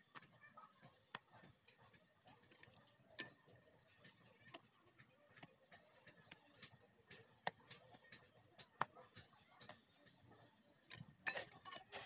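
Near silence with faint, irregular sharp clicks and taps, about one a second, then a short cluster of louder scraping and tapping near the end as damp clay is handled and pressed into the forge pit.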